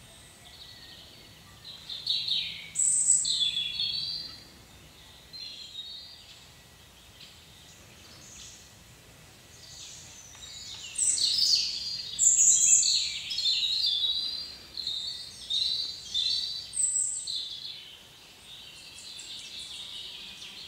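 Songbirds singing: quick chirps and trilled phrases, in a loud stretch about two seconds in and a longer one from about eleven to seventeen seconds, with quieter calls between.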